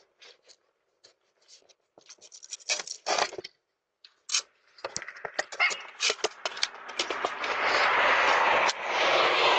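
Handling noise on a Ring video doorbell's own microphone as someone scrapes and pries at the unit: scattered scratches and taps, then from about five seconds in a dense rubbing noise that builds and holds loud and steady for the last few seconds.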